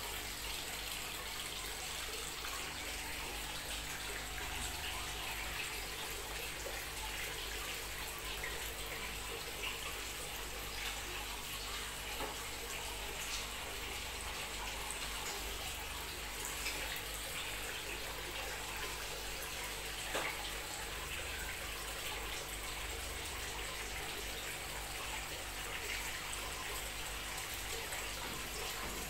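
Steady running water splashing into standing water, an even, unbroken sound.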